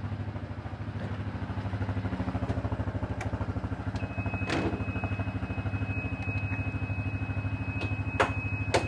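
Yamaha Grizzly 350 ATV engine idling steadily. A thin, steady high tone comes in about four seconds in, and a sharp knock sounds about halfway through, with two more near the end.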